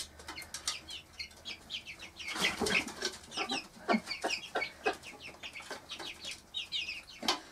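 Four-week-old Cuckoo Marans chicks peeping in many short, high chirps, with lower clucks from their protective mother hen. A short rustle, likely wings, comes about two and a half seconds in.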